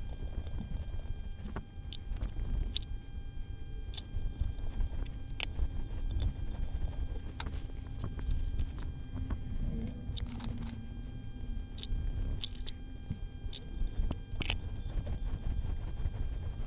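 Hand reaming of a steel steering arm: scattered sharp metallic clicks and scraping over a steady low rumble.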